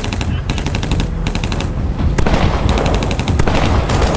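Automatic rifle fire in several rapid bursts, about ten shots a second, over a steady low rumble of car engines.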